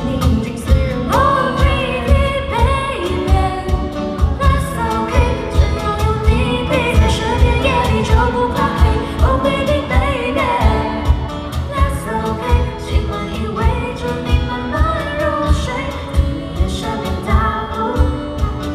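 A band playing a pop-rock song live, with a lead voice singing over guitar and a steady drum beat.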